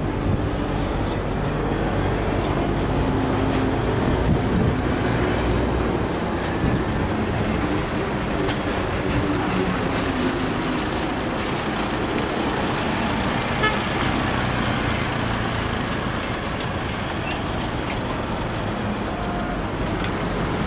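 Diesel engine of a Mercedes-Benz Axor box truck pulling away and driving past, its pitch rising over the first few seconds, over steady road traffic.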